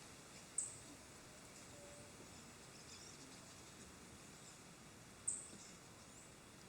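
Faint outdoor ambience with two short, very high bird chirps, one just after the start and one about five seconds later.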